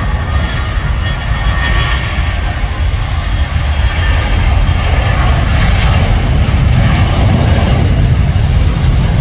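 Boeing 737-300 jet engines at takeoff power during the takeoff roll: a steady jet noise with a deep rumble that grows louder, and a thin fan whine that fades after the first few seconds.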